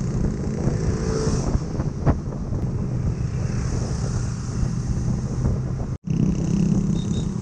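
Motorcycle engine running steadily at slow cruising speed, with wind and road noise. The sound cuts out abruptly for an instant about six seconds in.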